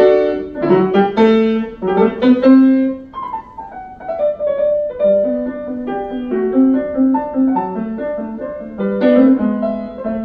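Yamaha grand piano played solo in a classical piece: quick figures, a falling run about three seconds in, then evenly repeated alternating low notes under the melody.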